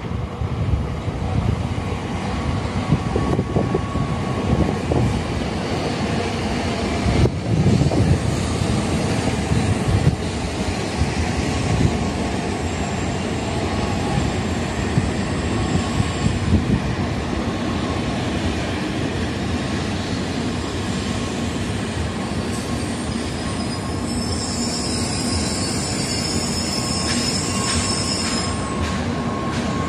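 Tokaido Shinkansen trainset pulling into the station, with a steady rush of wheels and air as the cars slide past. Near the end a high squeal sets in as the train slows to a stop.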